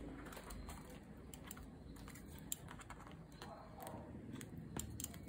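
Faint, scattered light clicks and taps of fingers and nails handling a frosted plastic A5 ring binder's cover.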